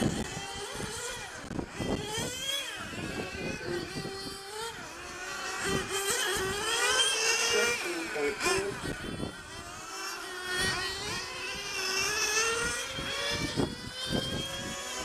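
Several 1/8-scale nitro RC GT cars lapping together, their small two-stroke glow engines whining up and down in pitch as they accelerate and brake, the notes overlapping.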